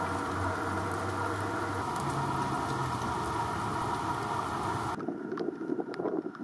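Light rain falling, an even hiss with a low steady hum underneath; about five seconds in it changes to quieter, scattered drips.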